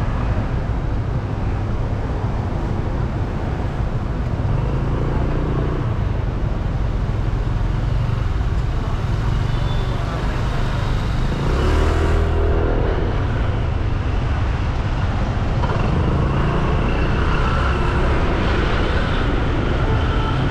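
Street traffic heard from a vehicle driving through town: a steady low rumble of engine and road noise, with other motorbikes and cars passing, the loudest pass about twelve seconds in.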